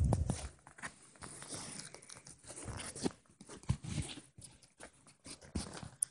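Close, irregular scuffling of a kitten wrestling a hand and an earphone cord on a blanket: rustling of the bedding, with knocks and bumps against the phone's microphone, the biggest bump right at the start.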